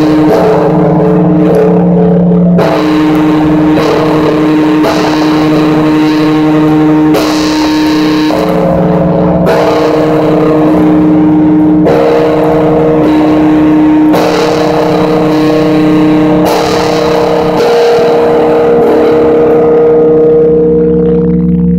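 A very large Orthodox church bell of about 500 poods (some eight tonnes) being rung, about nine strokes roughly every two and a half seconds. Each stroke rings on into the next over a deep, steady hum, and the last stroke, a few seconds before the end, is left to die away.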